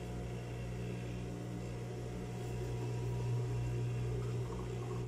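A steady low machine hum, an even drone with no change in pitch.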